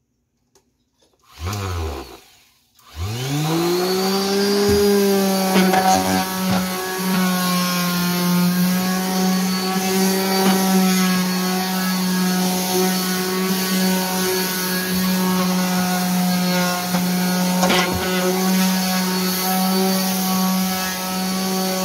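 Corded electric sander switched on briefly and off, then restarted about three seconds in, spinning up to a steady hum as it scuffs the protective surface of RV wall panels before painting.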